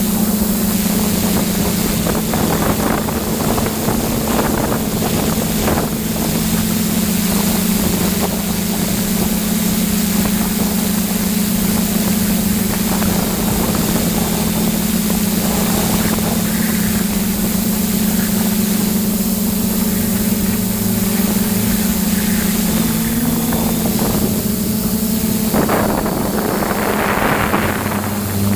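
Steady hum of a hexacopter's six DJI E310 electric motors and propellers in flight, heard from on board, with wind buffeting the microphone. The pitch shifts slightly and the wind noise swells in the last few seconds.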